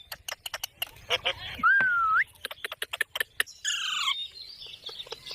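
Ringneck parrot vocalising: a run of sharp clicks, a rising whistle about two seconds in, and a short harsh squawk about four seconds in.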